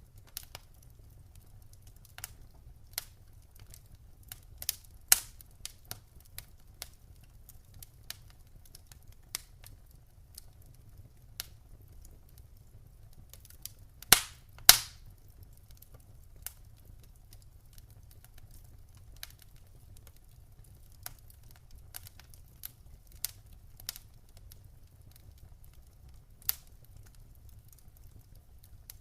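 Wood fire in a fireplace crackling: scattered sharp pops and snaps at irregular intervals, the two loudest close together about halfway through, over a faint low rumble.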